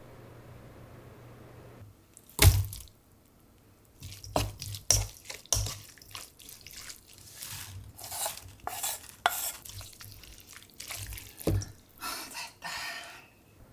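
A utensil stirring shelled cockles in spicy seasoning in a stainless steel mixing bowl: irregular clinks and knocks against the steel with wet squelching, after one sharp knock about two seconds in.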